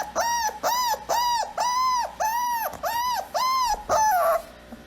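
A dog giving a rapid series of high, arching whines or yelps, about two to three a second, stopping near the end.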